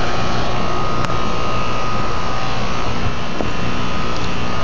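Steady whir of a running fan motor, with a constant high whine over it and a small click about a second in.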